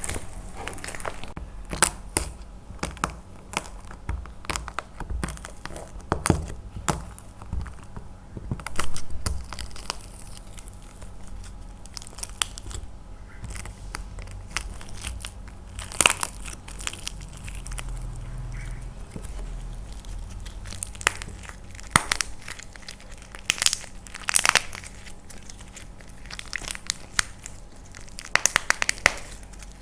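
Painted plaster clay cracking and crumbling as it is crushed by hand: irregular sharp cracks and crunches, with several quick clusters of snaps.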